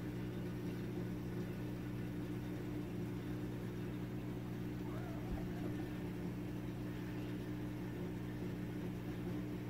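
Steady low electrical hum, even and unchanging, with a faint brief wavering sound about five seconds in.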